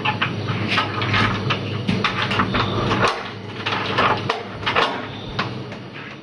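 A quick run of irregular clicks and knocks, over a steady low hum.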